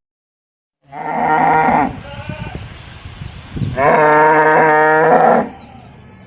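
A farm animal calling twice: two long, steady-pitched calls, the second one longer and louder.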